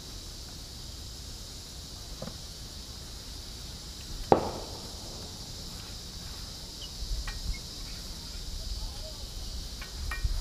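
Steady high-pitched insect drone, with one sharp knock about four seconds in and a few faint ticks later.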